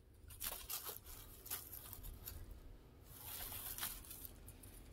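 Faint rustling and soft scuffs of clothing being handled as a knit sweater is picked up and held out, with a few brief light ticks among them.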